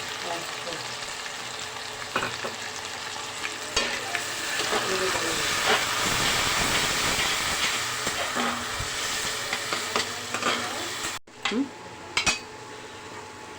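Tomato and spice masala sizzling in mustard oil in a kadai while a spatula stirs and scrapes it, with scattered knocks of the spatula against the pan. The sizzling drops away abruptly about 11 seconds in, leaving a few more knocks.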